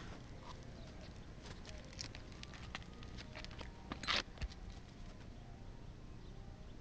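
Scattered light clicks and ticks with one louder scrape about four seconds in: handling noise from a handheld camera being moved about on a shingle roof.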